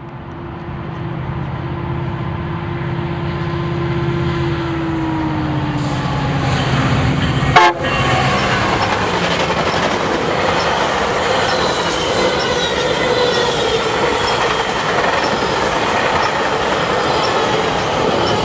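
A GO Transit commuter train of bilevel coaches rolling past. In the first few seconds a held tone slides slowly lower. A single sharp bang comes about halfway through, followed by the steady rumble and clatter of the coaches' wheels on the rails, with faint high squeals.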